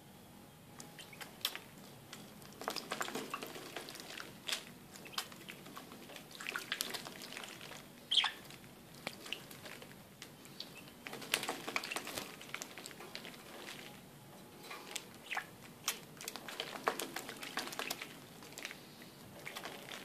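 Budgerigar bathing in a shallow plastic tub of water, splashing in several bursts of small flicks and patters, the sharpest about eight seconds in.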